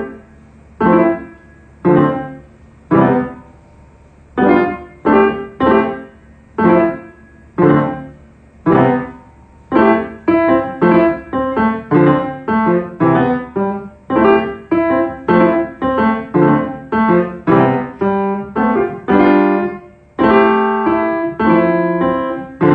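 Piano keyboard played slowly: single chords struck about once a second and left to ring out, then from about ten seconds in a quicker run of chords, with the notes running together near the end.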